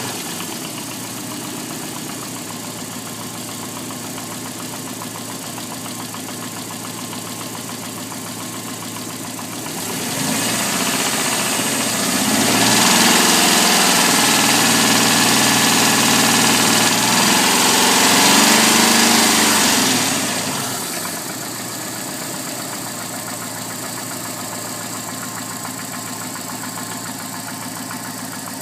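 Alfa Romeo 145's 1.6 boxer flat-four engine idling. About ten seconds in it is revved up and held at raised revs for several seconds, then drops back to idle. Under the running there is a ticking from the engine that the owner calls weird.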